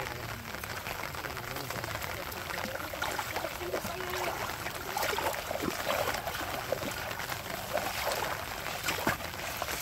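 Several people wading through knee-deep floodwater, the water sloshing and splashing irregularly around their legs with each step.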